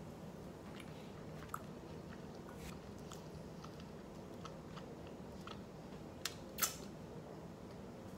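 A man eating a hamburger: quiet chewing and finger-licking, with scattered small mouth clicks and smacks over a steady low hum. One louder smack comes about six and a half seconds in.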